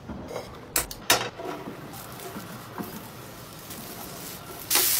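Two light knocks about a second in, from chopped mushrooms being gathered up on a wooden chopping board. Near the end a loud sizzle starts suddenly as the mushrooms fry in a hot cast-iron skillet.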